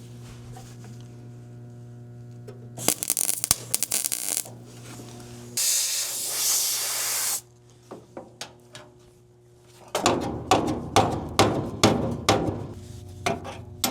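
A steady electrical hum, then two short bursts of MIG welding on the 1971 K5 Blazer's sheet-metal rocker panel: first a crackle, then a smooth hiss. From about ten seconds in, a run of hammer taps on sheet metal, about two or three a second.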